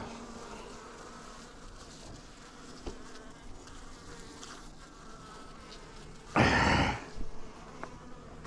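Honey bees buzzing faintly at an open hive. About six seconds in, a loud rush of noise lasts about half a second, followed by a smaller one.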